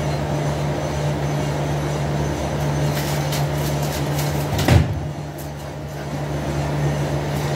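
Steady hum of a small electric fan motor, with a few light clicks and one sharper knock about four and a half seconds in.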